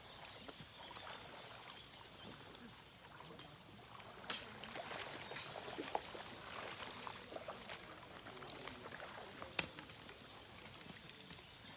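Faint trickling water, with a few sharp clicks about four, six and nine and a half seconds in.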